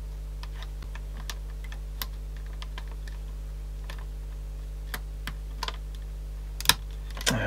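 Small scattered clicks and taps of a Sanyo Walkman's parts being handled and fitted back together, irregular and light, with one sharper click near the end.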